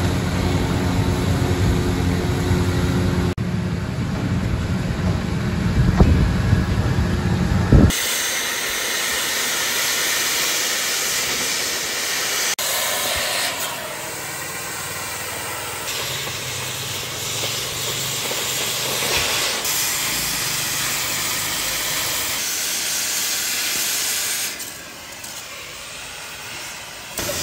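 Oxy-fuel cutting torch hissing steadily as it cuts through thick armour steel plate. For the first several seconds a loud, low, steady-pitched rumbling hum is heard instead, and it cuts off suddenly.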